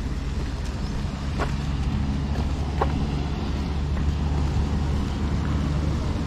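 Motorcycle engine running steadily with an even low hum, a little louder through the middle, with a couple of light clicks.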